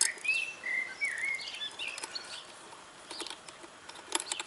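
Small birds chirping and calling in quick, gliding notes, then a few light clicks as a rubber battery strap with a metal hook is worked into place around a motorcycle battery.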